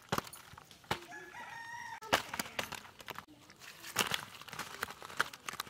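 Live climbing perch slapping and flopping as they are tipped from a bamboo basket onto a banana leaf: a run of sharp slaps, loudest about two seconds in and again around four seconds. A rooster crows in the background about a second in.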